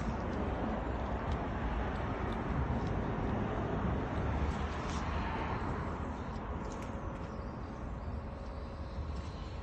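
Hitachi ZX135US-6 excavator's diesel engine running, a steady low rumble that is louder in the first half and eases down about six seconds in.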